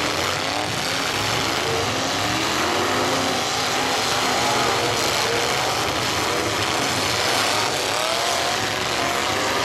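Several demolition derby cars' engines revving together, their pitches rising and falling over one another in a dense, steady din.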